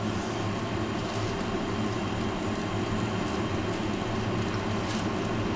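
Steady drone of a kitchen extractor fan running, an even whir with a constant low hum.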